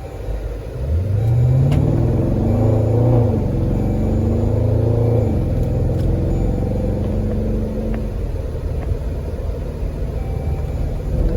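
Dodge Durango's 5.7 Hemi V8 running through AFE shorty headers. The engine rises in pitch about a second in, holds for a couple of seconds, then falls back and runs steadily.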